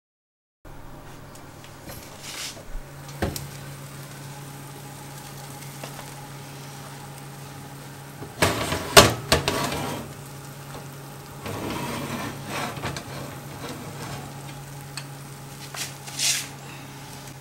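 Electric oven humming steadily while a metal baking tray of hot baked buns is pulled out along the oven rack. The loudest moment, about halfway through, is a scrape and clatter of the tray on the rack, followed by softer scraping a couple of seconds later and a short click near the end.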